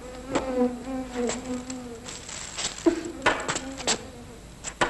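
A steady insect-like buzzing drone, heard in two spells: one lasting about two seconds, then a shorter one after a brief break. Several sharp clicks fall across it.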